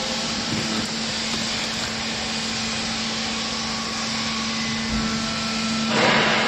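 Hydraulic cloth baler running: a steady mechanical noise with a constant hum from its motor and pump. About six seconds in, a louder rushing hiss starts.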